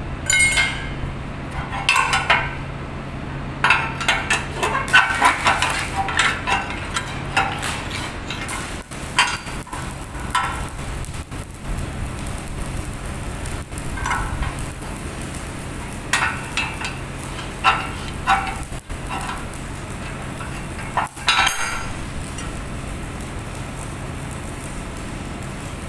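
Steel strip being worked on a steel bending jig into a pipe clamp: clinks, knocks and scraping of metal on metal, in busy clusters through the first eight seconds and again between about 16 and 22 seconds, over a steady low hum.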